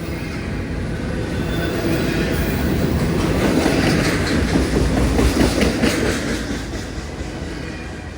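A train passing on the tracks, its wheels clattering over the rail joints with a heavy rumble. It grows louder to a peak about four to six seconds in, then begins to fade.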